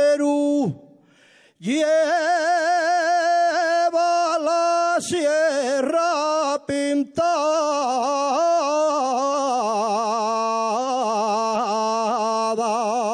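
A man singing an unaccompanied Asturian tonada: long, ornamented notes drawn out on a single syllable with a wide vibrato. There is a short breath about a second in, then one long phrase.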